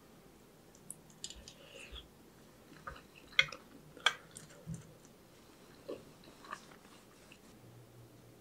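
Eating at a table: a metal spoon clinking against a white enamel pot, with soft chewing between the clinks. The two sharpest clinks come about three and a half and four seconds in, the second as the spoon is set down in the pot.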